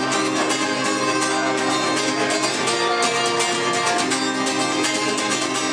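Guitar strummed steadily in the instrumental close of a song, without singing.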